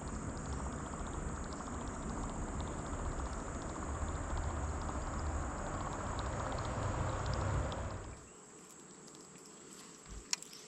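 Steady rushing wind-and-water noise, heavy in the low end, as from a bass boat under way. About eight seconds in it drops away to a quieter background with a steady high insect buzz and a sharp click or two near the end.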